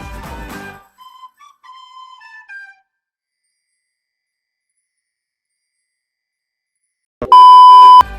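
Music cuts off about a second in, followed by a few soft, high melodic notes, then dead silence for about four seconds. Near the end a very loud, steady electronic beep sounds for under a second, the kind of alert tone used in a mock emergency-broadcast interruption.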